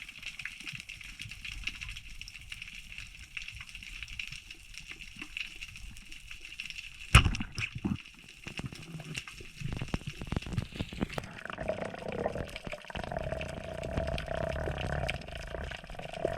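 Underwater ambience heard through a camera housing: a steady fine crackling hiss, broken about seven seconds in by one sharp, loud click. In the second half a low rumble and a steady hum come in.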